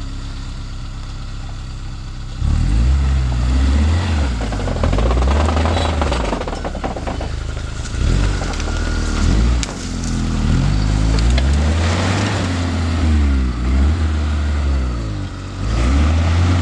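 Suzuki Vitara (Escudo) engine idling steadily, then about two seconds in revving up and down again and again as it is driven off-road.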